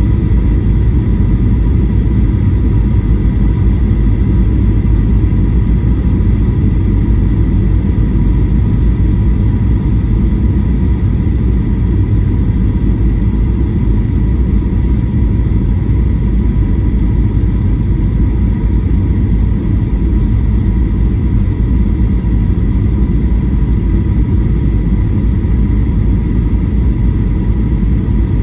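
Cabin noise inside a Boeing 737-800 descending toward landing: the steady roar of its CFM56-7B turbofan engines and the airflow past the fuselage, heaviest in the low end, with a faint steady whine over it.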